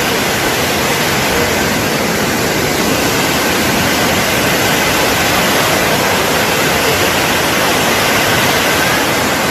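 Floodwater rushing, a loud and steady roar of moving water with no let-up.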